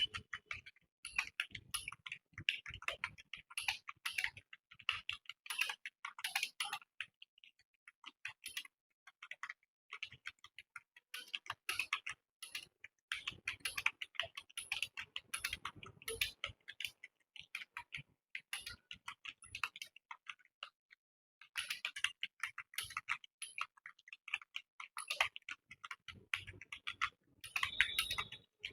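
Fast typing on a computer keyboard: quick runs of key clicks broken by short pauses.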